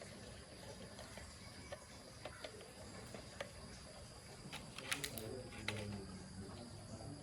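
Scattered small clicks and taps over a faint steady hiss, with a quick cluster of sharper clicks about five seconds in.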